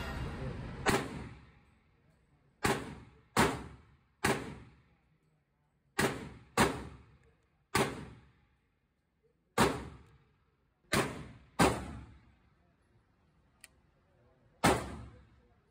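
Gunshots echoing in an indoor shooting range: about eleven single sharp shots at uneven intervals, each followed by a short ringing tail.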